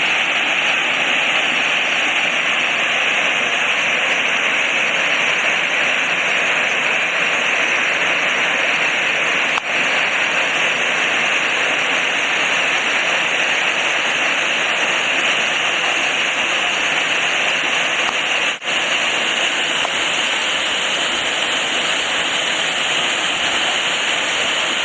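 A waterfall about 67 feet high, pouring in a loud, steady rush of falling water, broken twice by a momentary dropout.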